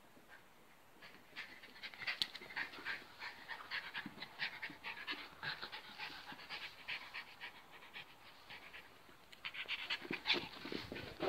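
A small dog panting rapidly in quick, short breaths, several a second. The breathing gets faster and louder near the end.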